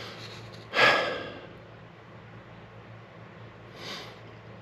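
A man sighs heavily about a second in, with a fainter breath near the end, over a faint steady low hum.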